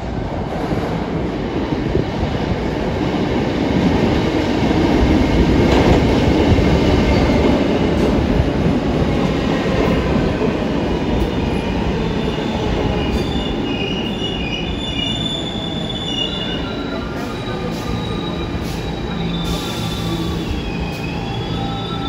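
New York City Subway train pulling into an underground station. The rumble of the cars is loudest about six seconds in, and from about thirteen seconds high squealing tones come in as the train slows.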